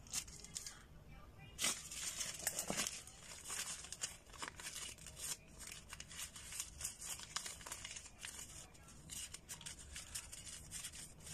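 Paper banknotes rustling and crinkling as they are handled and counted by hand: a run of short, irregular crackles, busiest in the first few seconds.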